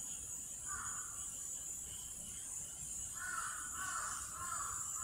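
A bird giving harsh calls: one short call about a second in, then a run of repeated calls, about two a second, from about three seconds in, over a steady high hiss.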